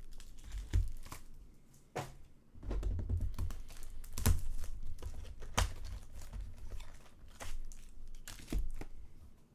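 Crinkling and tearing of the wrapping on a sealed box of Bowman Chrome baseball cards and its packs as they are opened by hand, with irregular sharp crackles.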